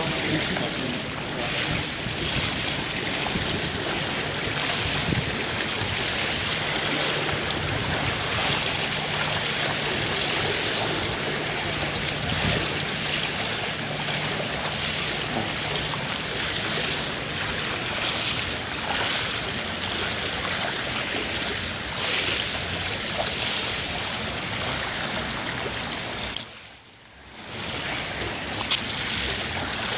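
Continuous splashing and lapping of swimming-pool water as a swimmer swims freestyle. The sound drops out briefly near the end.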